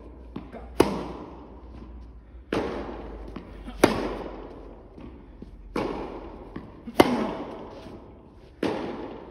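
Tennis rally on an indoor court. The near player's racket strikes the ball with a sharp crack three times, about every three seconds. Between them come the far player's duller shots, echoing around the hall.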